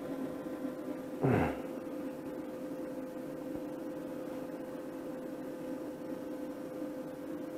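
Steady electrical hum with a faint hiss from the powered-up CB amplifier bench setup. About a second in, a short sound sweeps quickly downward in pitch.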